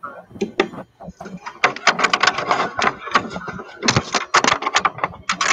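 A handheld microphone being handled, giving a run of clicks, knocks and rubbing noise, mixed with an indistinct voice.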